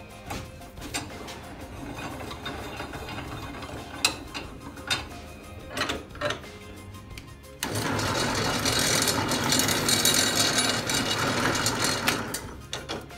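A wooden batten is clamped in a homemade steel drill-press vise, with a few knocks as the vise screw is tightened. About eight seconds in, the drill press starts suddenly and bores into the wood, running loudly for about five seconds before stopping.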